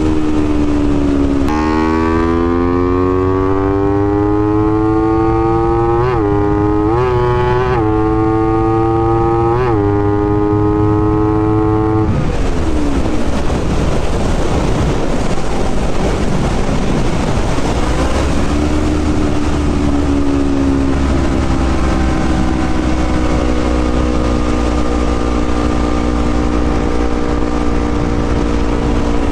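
Honda CBR250RR motorcycle engine under way: its note climbs steadily for about ten seconds, broken by three brief dips, then turns rough and noisy for several seconds before settling into a steadier, lower drone.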